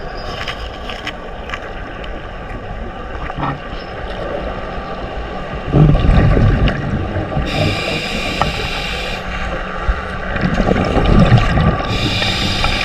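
Scuba diver breathing through a regulator underwater, in a slow cycle: a hiss on each inhale, then a rough, bubbling rumble on each exhale. This happens about twice.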